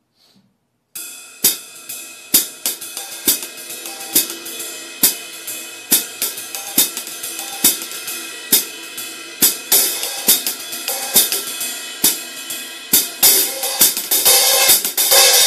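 Drum kit playing a steady beat on a Sabian HHX Legacy 22-inch ride cymbal with Zildjian K Custom Hybrid 13.25-inch hi-hats, starting about a second in. The cymbal wash swells louder near the end and then stops suddenly.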